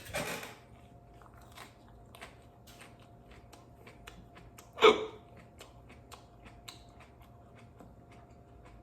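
A man chewing a raw Chocolate Scorpion pepper pod, with faint crunching clicks throughout and a short noisy burst right at the start. About five seconds in comes one sharp, loud hiccup, from the chronic hiccups that the pepper is meant to stop.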